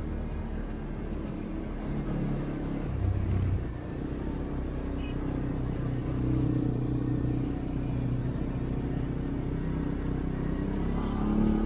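CF-Moto 450 ATV engine running under way, its pitch shifting up and down a little as the throttle varies.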